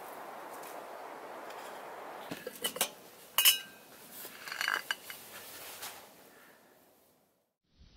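A steady hiss, then a run of metal clinks and clanks from a stainless steel cooking pot and its lid, the loudest a short ringing clang about three and a half seconds in.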